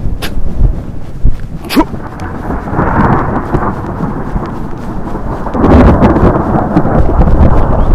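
Strong wind buffeting the microphone of a camera carried on horseback, a loud, uneven low rumble that surges about three seconds in and again near the end, with a few sharp knocks.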